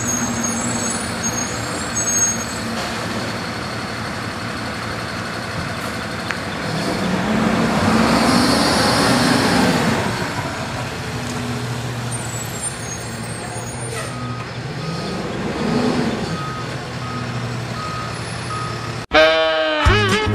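Rear-loader garbage truck's diesel engine running at the curb, revving up and back down twice, about eight and sixteen seconds in, as the packer works, with a steady series of beeps starting about fourteen seconds in. Near the end it cuts off suddenly to upbeat guitar string-band music.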